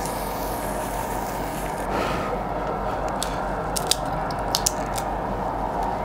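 Steady sizzling of food on a WMF tabletop grill, with a handful of sharp cracks and clicks in the middle seconds as a grilled shrimp is bitten into and chewed.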